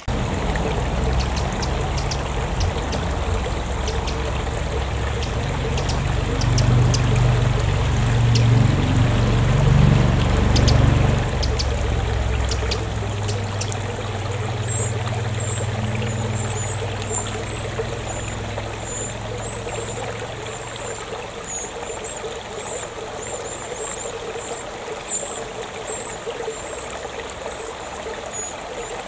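Small stream trickling and running steadily, with a low rumble over the first half that fades away. From about halfway a high, rapid, thin twittering sounds over the water.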